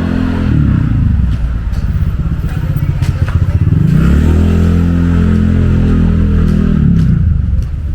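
Small motorcycle engines passing close by. The engine pitch drops in the first second, then a second run rises about four seconds in, holds, and drops off near the end.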